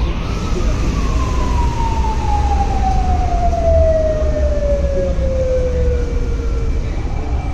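An emergency vehicle's siren winds up to its peak, then slowly winds down in one long falling tone lasting about seven seconds, over a heavy low rumble.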